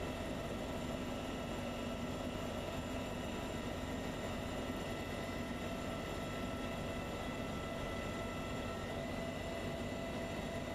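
Heavy transport helicopter in flight, heard inside its cabin: a steady drone of engines and rotors with several steady whining tones.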